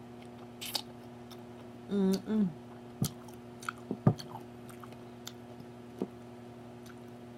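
A person chewing food, likely cabbage, with scattered wet mouth clicks and smacks. About two seconds in there is a short hum of the voice, and a sharper click comes just after four seconds.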